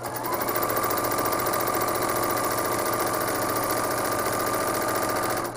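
Home sewing machine running flat out with the foot pedal pressed to the floor during free-motion quilting: a steady motor whine over a fast, even needle clatter, stopping abruptly near the end.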